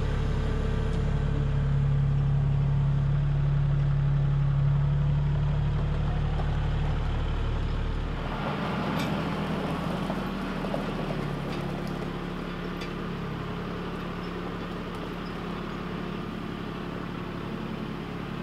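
Compact tractor's engine running steadily as it hauls a log on its front loader, close at first. About eight seconds in, the sound changes to the engine heard farther off and quieter, with a few faint clicks.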